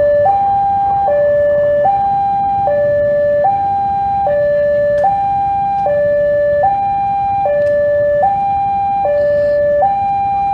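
Railway level-crossing warning alarm sounding, an electronic two-tone signal alternating evenly between a lower and a higher tone, each held just under a second. It signals that a train is approaching the crossing.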